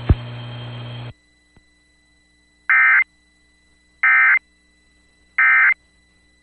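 Emergency Alert System end-of-message signal: three short, identical bursts of digital data tone, about a second apart. They follow about a second of faint static that cuts off.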